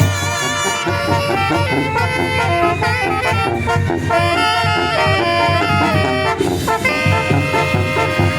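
Zacatecan tamborazo band playing: trumpets and saxophones carry a melody over the steady beat of the tambora bass drum.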